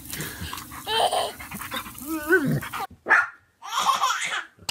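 A small black puppy yaps in two short bursts, about three and four seconds in. Before that a young child's voice is heard.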